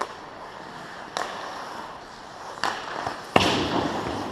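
Ice hockey play at the net: four sharp clacks of sticks and puck. The loudest comes a little over three seconds in and is followed by a short scraping hiss of skates on the ice.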